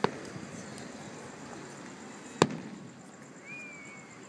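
Aerial fireworks shells bursting: two sharp bangs about two and a half seconds apart, each followed by a rolling echo.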